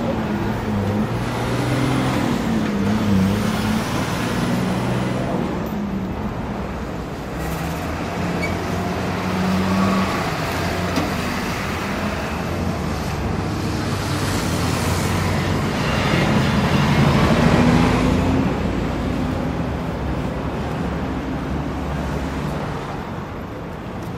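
Busy city-intersection traffic: a continuous din of cars, trucks and buses idling and pulling away, with engine drones shifting in pitch and swelling loudest about seventeen seconds in.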